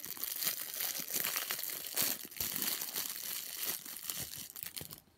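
Clear plastic bag crinkling as it is handled and pulled open to get a small plush toy out. The crackling is continuous and stops near the end.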